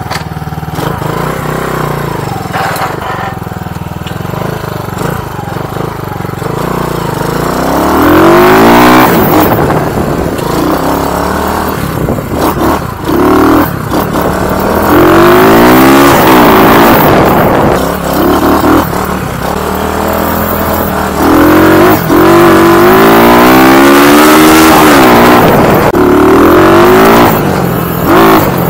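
RPS Condor 150cc single-cylinder four-stroke motorcycle engine, fitted with a Nibbi 26 mm carburetor and pod air filter, idles steadily for several seconds. It then revs up and down repeatedly as the bike pulls away and rides off, with the pitch climbing and dropping several times. The throttle response is a little boggy, which the rider takes for a pilot jet that is a little too rich (fat).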